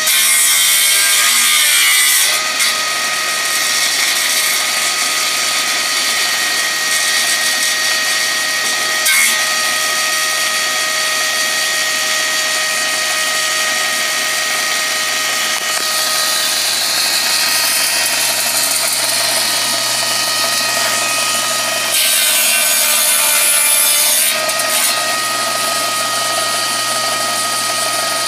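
Old belt-driven table saw running steadily with a constant whine, its blade cutting through wooden boards a few times: near the start, after about sixteen seconds, and again around twenty-two seconds.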